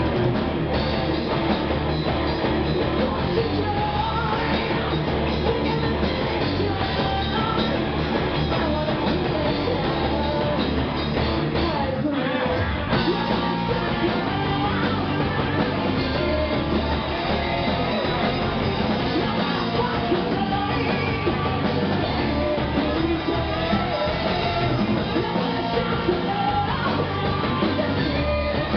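Live rock band playing: a woman sings into a microphone over electric guitars, bass guitar and drums, played loud through stage amplifiers. The band stops for a moment about twelve seconds in, then carries on.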